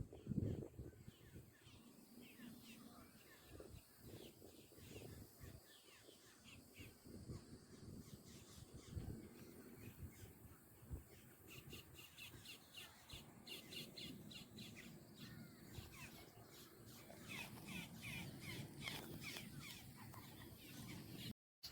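Faint bird calls: many short chirps repeated in quick runs, growing busier from about halfway through.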